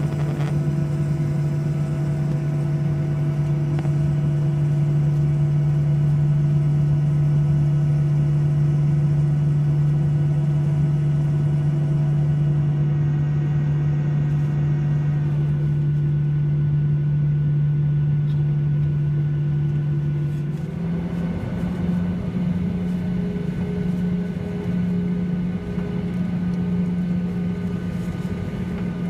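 Boeing 737-800's CFM56-7B jet engines running at low power, heard inside the passenger cabin as a steady hum over a rumble. About twenty seconds in, the hum steps slightly higher in pitch.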